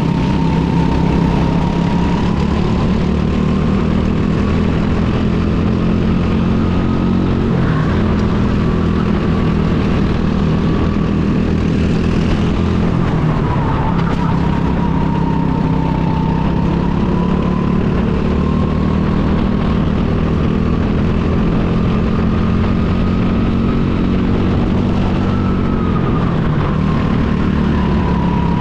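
Go-kart engine running continuously at racing speed, its pitch rising and falling gently as the throttle changes through the lap.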